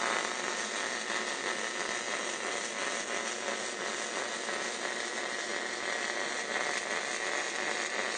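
MIG welding arc running a continuous bead along a steel fire pit seam: an even, unbroken crackle and hiss that starts suddenly and stays steady throughout.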